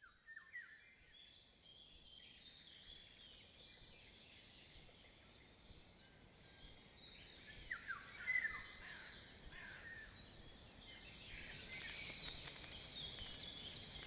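Faint outdoor ambience of birds chirping, fading in at the start. The chirping is busiest about eight seconds in and grows louder near the end.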